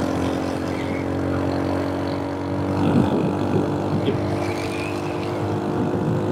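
Honda Super Cub C125's single-cylinder engine running at a steady cruising speed on the highway, a constant drone over a rush of road noise. It swells briefly about three seconds in.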